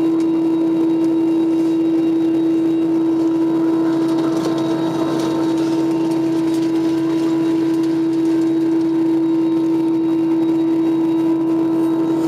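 De-icing fluid spray striking an Airbus A321's fuselage and cabin window, heard from inside the cabin as a hiss over a loud, steady hum. The hiss strengthens for a couple of seconds about four seconds in.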